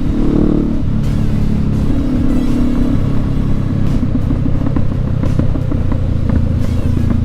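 Motorcycle engine running under way, heard from the rider's helmet, its note stepping down about a second in and shifting again around three seconds as the revs change.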